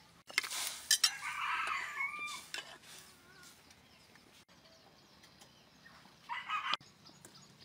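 Chickens clucking, with a rooster crowing once for over a second about a second in and a shorter call near the end. A couple of sharp noises come at the very start.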